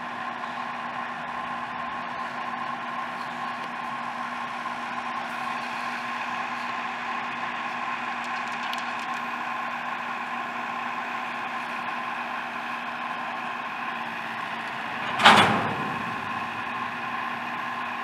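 Double-stack intermodal train's well cars rolling past on the rails: a steady rolling noise with a constant tone under it. One loud bang about fifteen seconds in.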